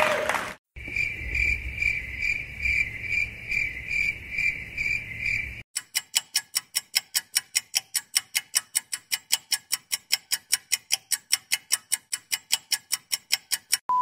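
Cricket-chirping sound effect, the stock 'awkward silence' meme: a high, steady chirp pulsing about three times a second. After about five and a half seconds it cuts to a fast, even run of sharp clicks, about five a second.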